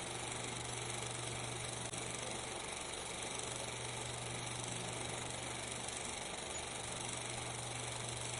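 Steady hiss with a constant low hum, unchanging throughout: the noise floor of a silent 16mm film's transfer, with no sound events.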